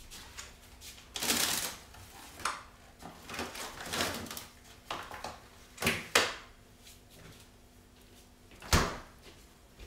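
Groceries being stowed in a fridge freezer: plastic-wrapped meat packs rustling and set down on the freezer shelves, with several sharp knocks of the door and shelves, the loudest near the end.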